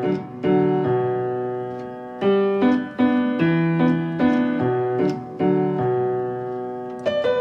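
Outro music played on piano: a light melody over ringing chords, new notes struck every half second or so.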